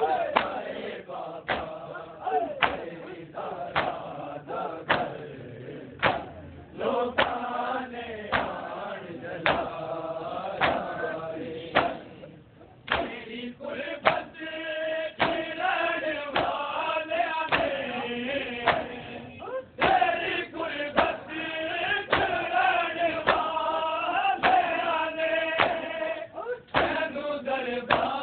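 A crowd of men chanting a Shia mourning lament (nauha) together while beating their chests in time, the hand slaps landing steadily at a little under two a second. The chant and the beating pause briefly about twelve seconds in, then resume.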